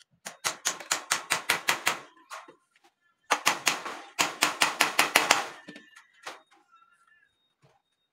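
Hammer tapping nails into the wooden frame of a wire-mesh sand sieve: two runs of quick, light blows, about six a second. The second run starts about three seconds in.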